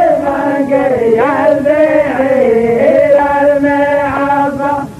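A man chanting Arabic poetry in the drawn-out mawwal style, holding long, wavering notes on one unbroken phrase with no instruments. The phrase ends just before the close.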